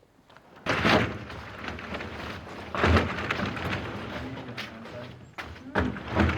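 Crackling and rustling of a stiff plastic dimpled drainage membrane being handled and moved, with a few louder thumps as the sheet hits or flexes.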